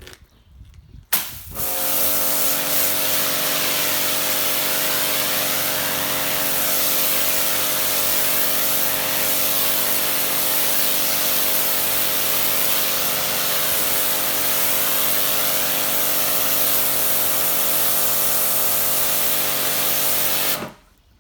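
Kärcher K5 pressure washer starting with a click about a second in. Its electric motor and pump then run steadily under the hiss of the high-pressure water jet for about nineteen seconds, cutting off suddenly just before the end as the trigger is released.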